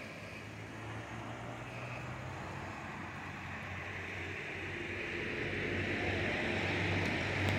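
Vehicle noise: a steady low engine hum under a rushing noise that swells over the second half.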